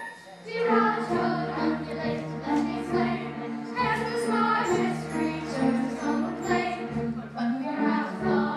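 A group of voices singing a musical-theatre song with instrumental accompaniment, the music picking up again about half a second in.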